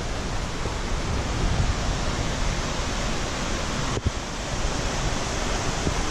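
Steady rushing noise of creek rapids close to the microphone, with a brief break about four seconds in.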